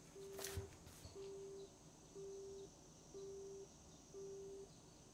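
Japanese telephone busy tone from a receiver left hanging off the hook by its cord: a low beep, half a second on and half a second off, five times at one per second. A brief sharp knock or rustle about half a second in.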